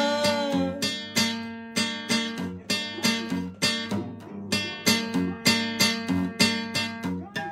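Acoustic guitar strummed in a steady, repeating rhythm as an instrumental passage, after a held sung note that ends within the first second.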